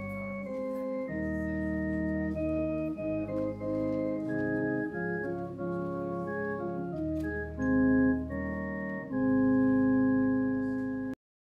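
Organ playing slow sustained chords that change every second or so, ending on a long held final chord that cuts off abruptly near the end.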